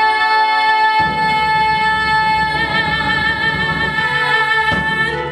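A female singer holds one long high note to close a musical-theatre song, with vibrato widening over its second half, over the accompaniment. The note stops about four and a half seconds in.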